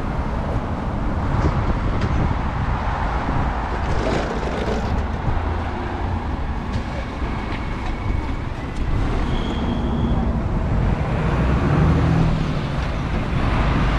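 Road traffic: cars and vans passing, with a lorry going by close near the end.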